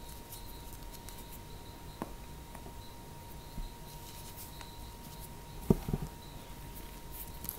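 Fingers crushing and crumbling clumps of dry cornstarch, a soft scattered crunching and crackle. A louder thump comes about three-quarters of the way through as the hands press into the pile.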